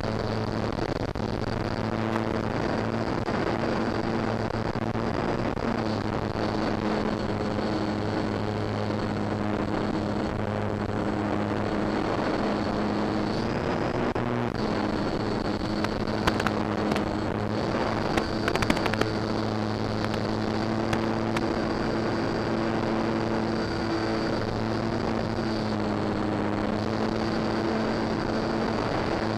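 Durafly Tundra model plane's electric motor and propeller, heard from the onboard camera, running steadily with a hum and a thin high whine over wind rush. The pitch dips briefly about halfway through, and a few short crackles come a couple of seconds later.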